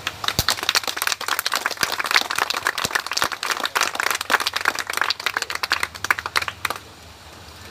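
A small crowd applauding with scattered hand claps, which stop near the end.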